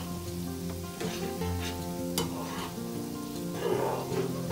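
Chopped onion, bacon and paprika frying in olive oil in a frying pan, sizzling steadily, while a spoon stirs and clicks against the pan now and then. Quiet background music plays underneath.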